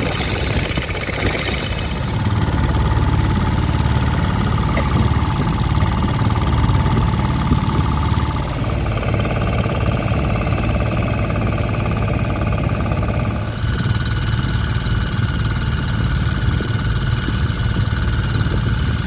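An engine running steadily with a heavy, knocking low beat, its note shifting a couple of times.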